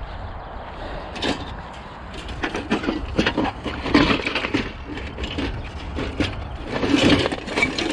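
Hands rummaging through a bucket of old screws and scrap metal bits: a run of rattles, clinks and knocks, busiest around the middle and again near the end.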